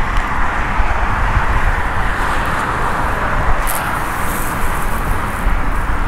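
Steady outdoor rush of wind buffeting the microphone, with a low irregular rumble, over the constant hum of traffic on the neighbouring highway bridge. There is a brief higher hiss about three and a half seconds in.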